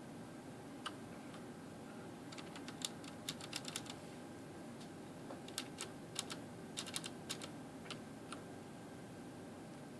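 Keys on a Ducky Shine 3 mechanical keyboard being pressed, giving sharp clicks: a single click, then two quick flurries of clicks with a pause between them.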